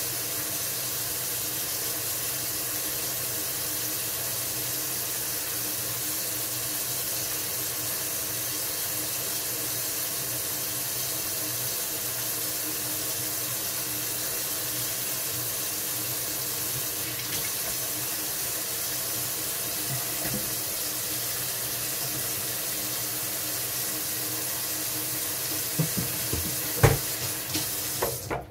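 Water running steadily from a kitchen tap into a sink, with a few sharp knocks near the end.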